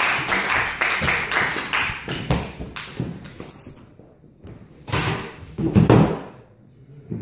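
Audience applause fading out over the first two or three seconds, followed by a couple of heavy thumps about five and six seconds in.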